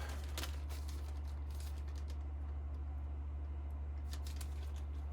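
Scattered light clicks and taps of a small part and its packaging being handled, over a steady low hum.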